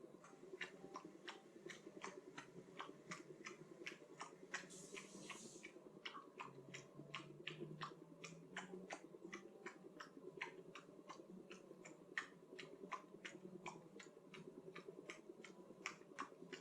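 Faint, irregular clicking, about three to four clicks a second, over a low steady hum, with a brief hiss about five seconds in.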